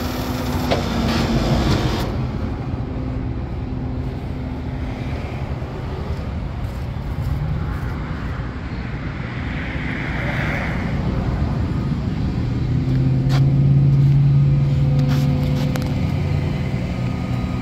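Rollback flatbed tow truck's engine running steadily while the bed hydraulics move a wrecked pickup. It gets louder for a couple of seconds about three-quarters of the way through.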